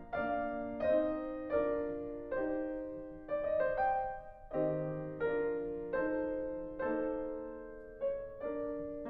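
Solo piano background music: slow chords struck a little more than once a second, each left to fade before the next.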